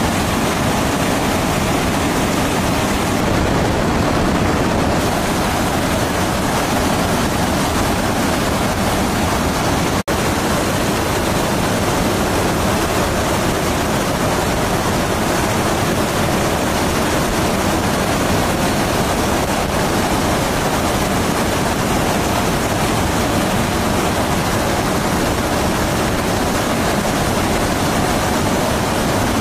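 Steady rushing roar of jet aircraft in flight, with a momentary dropout about ten seconds in.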